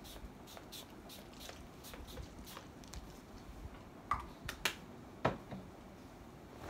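A small perfume bottle sprayed in several short, quick puffs, followed by a few louder clicks and a dull knock as it is handled.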